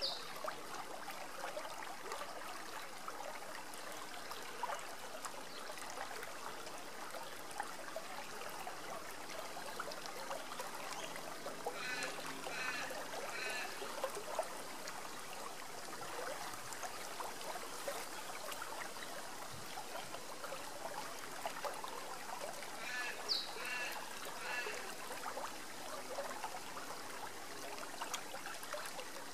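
Shallow river water rippling and babbling steadily over rocks. A bird calls in two short runs of three notes, about halfway through and again later.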